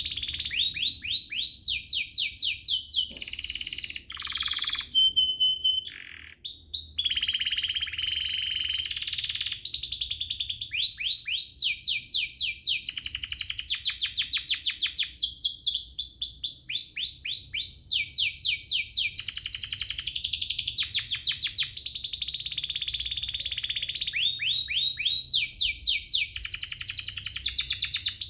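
Domestic canary singing a long, loud song of fast trills, each a rapid run of repeated downward-sweeping notes, broken by a few short held whistles and brief pauses around four and six seconds in.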